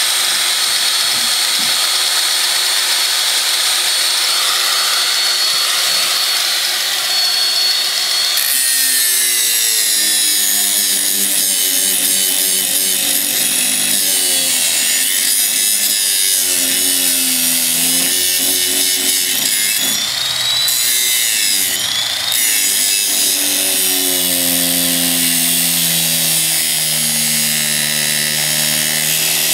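Electric angle grinder grinding a steel bar, throwing sparks. A steady high whine for about the first eight seconds gives way to a harsher grinding with a wavering pitch as the disc bites and the motor loads, easing briefly twice in the second half.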